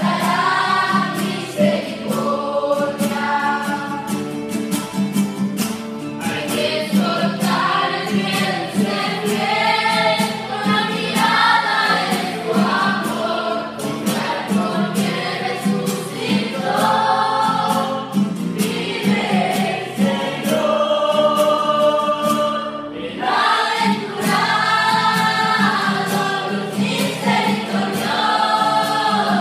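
Mixed youth choir, boys and girls together, singing a Spanish-language hymn in unison to a strummed nylon-string classical guitar.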